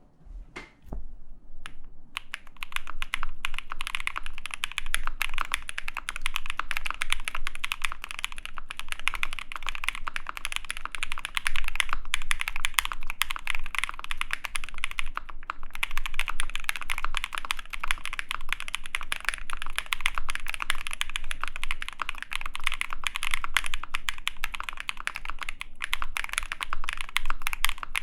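Fast typing on a mechanical keyboard with lubed and filmed JWK/Durock Epsilon linear switches in a polycarbonate plate, under GMK keycaps: a dense stream of deep keystrokes. A few scattered presses come first, the steady typing starts about two seconds in, and there is a brief pause around the middle.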